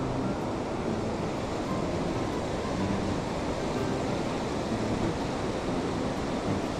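Ocean surf breaking and washing over the sand in the shallows, a steady rushing noise.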